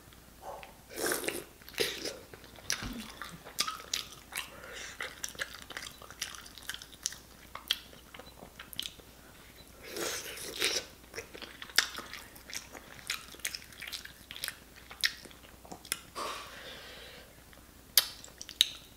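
A person biting and chewing a boiled potato chunk coated in seafood sauce, with many short wet mouth clicks scattered throughout.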